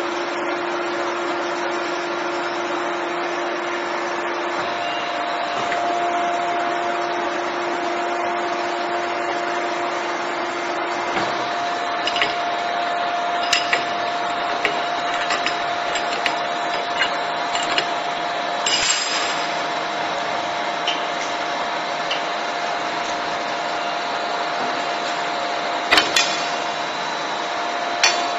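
A 30-ton CNC busbar machine running with a steady hum and hiss. From about halfway, sharp metallic clanks and clicks come as a wrench and the bending die tooling are worked on the steel table.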